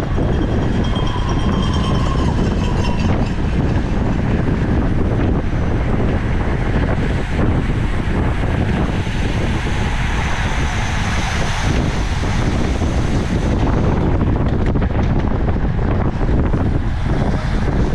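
Loud, steady wind noise buffeting the microphone of a camera riding on a racing road bike at speed.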